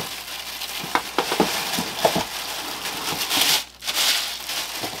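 Plastic packing bag crinkling and rustling as a speaker-stand part is unwrapped from it, with a few short clicks mixed in.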